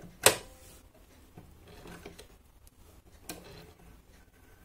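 Handling noises from a Brother FS101 sewing machine being threaded: one sharp click just after the start, a smaller click a little past the middle, and faint rustling and tapping in between.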